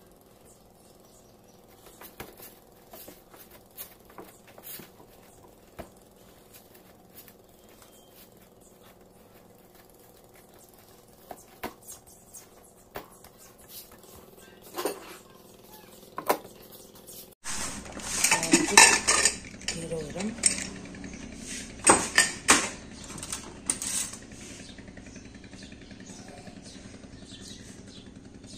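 Kitchen utensils being handled: scattered light taps and clicks at first, then, after a cut partway through, louder clattering and clinking of pots, plates and spoons with several sharp knocks.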